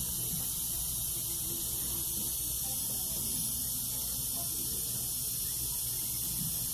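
Steady room noise: an even hiss with a low hum underneath and no distinct clicks or knocks.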